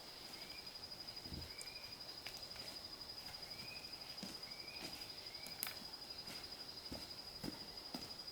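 Faint outdoor rural ambience: a steady high-pitched insect drone, short rising chirps every second or so, and a few scattered light knocks.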